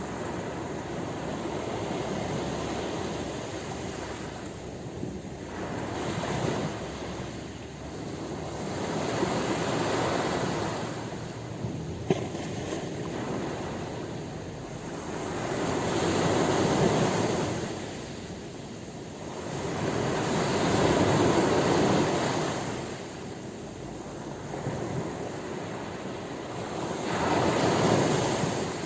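Ocean surf washing ashore: a steady rush of waves that swells up and falls back about four times.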